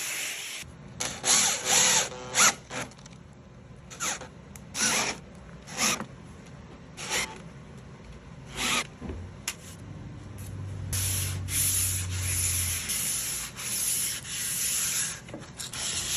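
Wood being rubbed or scraped by hand in a series of short strokes about a second apart, turning into closer, longer back-and-forth strokes from about eleven seconds in. A low hum is heard briefly in the middle.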